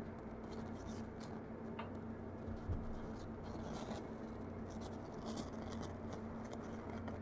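Audiolab 8200A amplifier's left channel making its strange noise through the speaker with no music playing: irregular scratchy crackles over a steady low hum.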